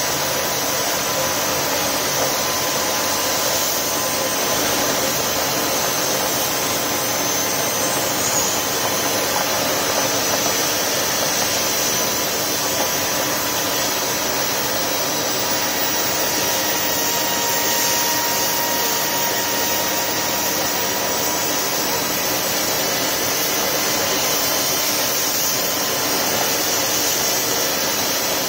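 Turbocharged wood-burning barrel stove running flat out: a steady jet-like rushing roar of forced air and fire, with a faint thin whine held at one pitch.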